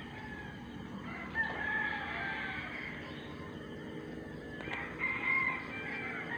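Rooster crowing twice, each crow lasting about a second, over a steady low background.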